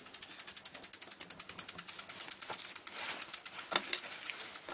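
Freewheel pawls in the rear hub of a B'Twin mountain bike ticking rapidly and evenly as the back wheel spins freely, about ten clicks a second.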